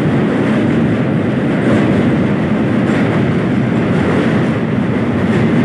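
Train running across a steel truss rail bridge, heard from a carriage window: a loud, steady noise of wheels on the rails.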